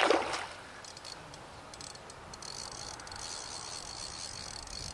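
A hooked carp splashes loudly at the surface once. From about a second in, a fast high-pitched ticking runs on: the fixed-spool reel's clutch giving line as the fish pulls.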